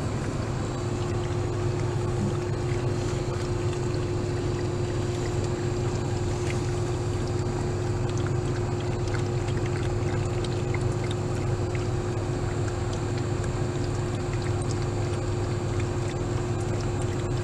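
Steady low hum inside a parked car's cabin, typical of the engine idling, with a faint even tone held above it.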